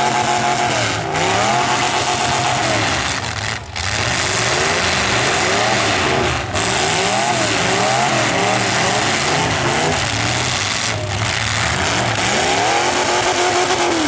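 Engines of several full-size derby cars revving, their pitches rising and falling over one another as the cars accelerate, back up and slow.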